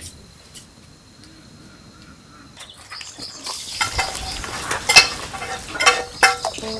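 A dog eating cooked rice: wet chewing and lip-smacking, a quick run of sharp clicks that starts about halfway through and peaks about five seconds in. The first half is quiet, with only faint ticks.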